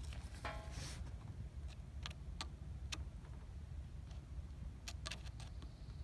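Faint, irregular clicks and ticks at the starter solenoid as a test light's metal probe is touched across its S terminal and battery-positive terminal, trying to jump the starter, over a faint low hum.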